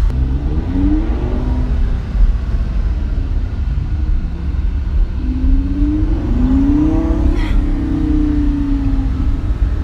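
Lamborghini Gallardo's V10 engine heard from inside the cabin at low road speed, a steady deep rumble under an engine note that rises about a second in, climbs again from about five to seven seconds, sinks back, and rises once more at the end as the car accelerates.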